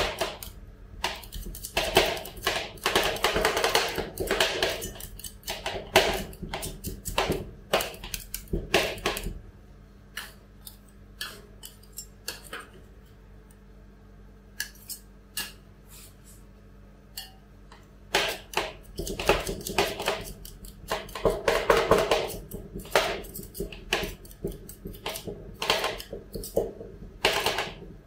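Two steel spatulas chopping banana into ice cream on a frozen steel cold plate: rapid metal clacking against the plate, thinning to occasional taps for several seconds in the middle, then fast again. A low steady hum runs beneath.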